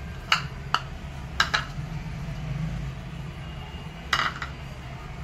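A few short clinks and knocks of kitchen containers being handled, among them a glass jar, with a low steady hum underneath. There are two light clinks in the first second, a double clink at about a second and a half, and a quick cluster just after four seconds.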